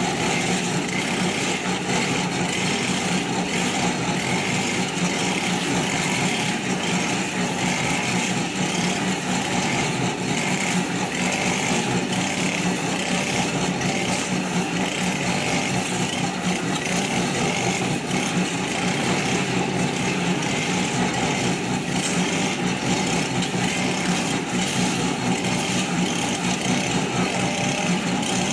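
Small engine of a portable concrete mixer running steadily as the drum turns.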